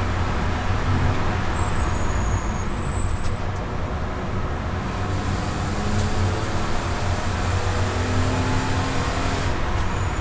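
Cabin sound of a BMW E90 325i's straight-six at speed, with heavy road and wind rumble. The engine note drops as the driver lifts off, then climbs again under hard acceleration near the end.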